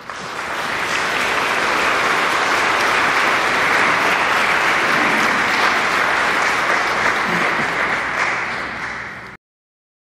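Congregation applauding: steady, dense applause that cuts off abruptly near the end.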